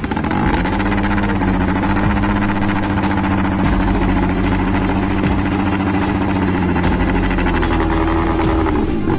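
Fiat Seicento rally car's engine running steadily at idle, recorded right at the exhaust tailpipe.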